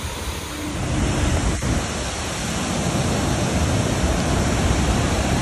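Steady roar of Niagara Falls: a dense, even rush of water noise with a heavy low rumble, growing louder about a second in.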